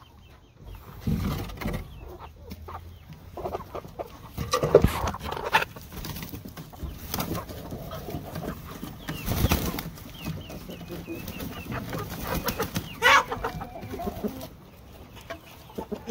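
Chickens clucking and calling as hens and roosters come out of the coop door, with scattered thumps and scuffles in between and a louder squawk-like call about thirteen seconds in.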